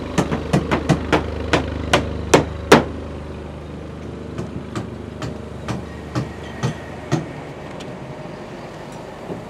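Hand hammering on a construction site: sharp strikes about three a second, fainter and slower from about three seconds in until they stop near the seven-second mark. Under them a steady low engine hum stops about three seconds in.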